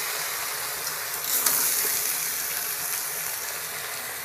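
Chopped water spinach sizzling and steaming in a hot metal pot, cooking in its own moisture with no water added, as a steady hiss. One sharp knock comes about one and a half seconds in.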